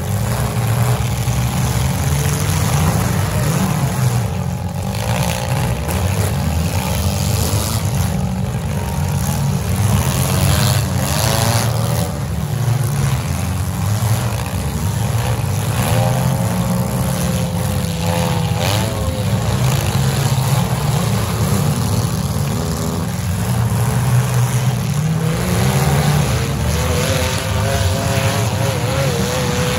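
Several demolition derby compact cars' engines running hard and revving up and down together, unmuffled, with occasional crunching hits as cars ram each other.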